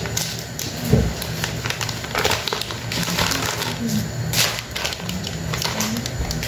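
Thin plastic wrappers of individually packed sakura mochi crinkling and crackling in the hands as they are handled and opened, in quick irregular bursts.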